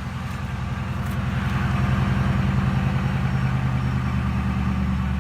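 2007 Ford Crown Victoria Police Interceptor's 4.6-litre V8 idling steadily just after a cold start. It grows louder over the first two seconds, then holds an even idle.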